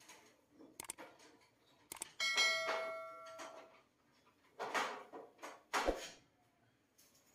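Subscribe-button sound effect: a click, then a bell chime that rings for about a second and a half as it fades. A few sharp clicks come before it and two short noisy bursts follow.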